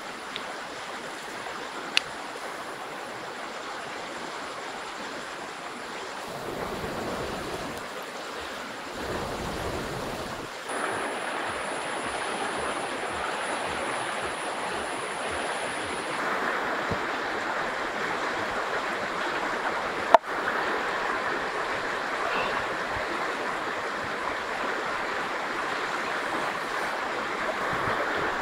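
River water flowing steadily, a little louder from about eleven seconds on. A sharp click about two seconds in and a louder sharp knock about twenty seconds in cut through it, and a thin high steady tone sounds for a few seconds in the middle.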